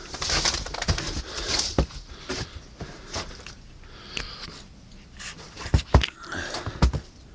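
A dog moving about on a hard floor: scattered clicks and taps, with rustling in the first couple of seconds and a few louder knocks about six seconds in.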